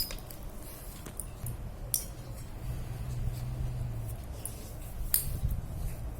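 A few light metallic clicks and taps from bicycle freewheel parts being handled, the clearest about two seconds in and again near the end.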